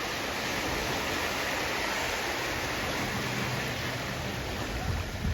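Sea surf: a steady, even wash of waves with no single break standing out.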